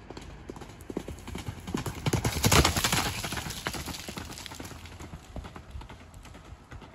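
Hoofbeats of a galloping horse on a dirt track: they grow louder as it approaches, are loudest as it passes about two and a half seconds in, then fade as it moves away.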